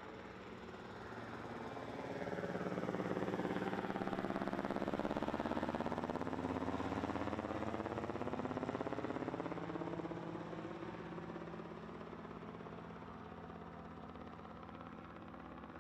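Light aircraft passing by, most likely on its takeoff run and climb-out. The engine note grows louder over a couple of seconds, holds for several seconds with a sweeping, phasing quality, then fades away.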